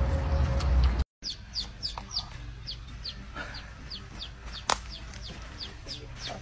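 Ducklings peeping: a steady run of short, high, falling peeps, about three or four a second, with one sharp click near the middle. Before the peeping, the first second holds loud low rumbling noise, which breaks off into a moment of silence.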